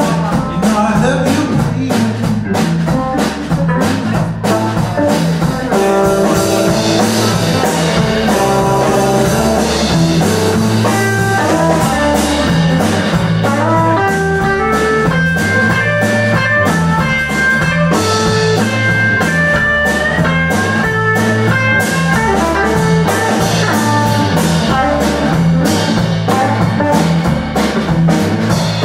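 Live blues band playing, with a guitar carrying a single-note lead line over bass and drum kit.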